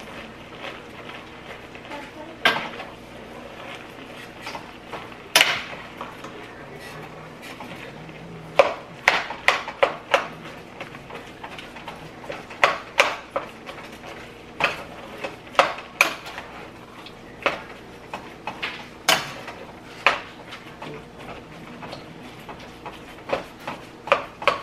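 A utensil knocking and scraping against a stainless steel pot while ground beef is stirred and chopped up with seasonings: irregular sharp clinks, some in quick runs of several.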